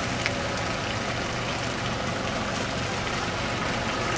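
A four-wheel-drive's engine idling steadily, with one small click shortly after the start.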